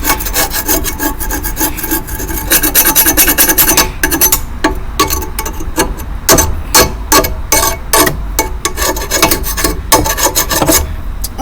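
Scraping caked dead grass off the underside of a lawn mower deck: repeated rasping strokes, a quick dense run about two seconds in, then separate sharp scrapes.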